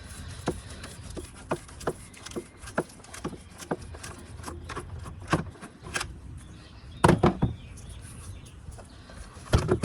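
Screwdriver turning the captive Phillips screws in the plastic air filter box cover: a run of short clicks about two a second, with a louder cluster of plastic knocks about seven seconds in and again near the end.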